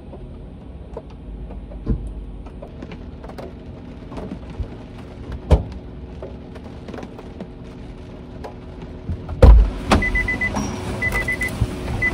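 Inside a parked car, scattered taps of rain on the roof over a low steady hum. About nine seconds in, a car door opens with a loud thump, and a door-open warning chime starts beeping about once a second as someone climbs into the driver's seat.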